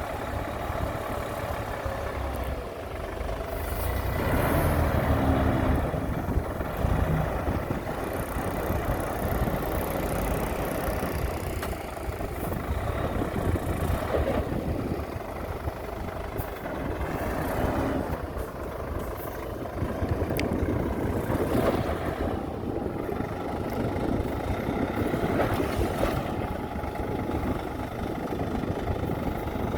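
Heavy diesel engines of construction machinery (dump truck and bulldozer) running continuously, swelling louder for a couple of seconds about four seconds in.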